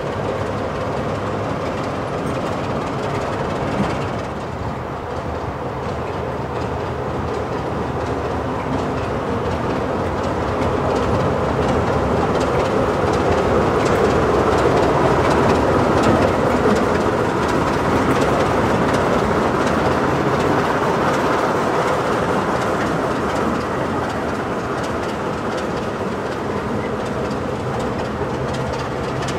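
Sulzer twin-bank diesel engine of BR Class 44 'Peak' locomotive D4 running as the locomotive moves slowly along the track light engine, with wheels knocking over the rail joints. The engine note swells in the middle and eases towards the end.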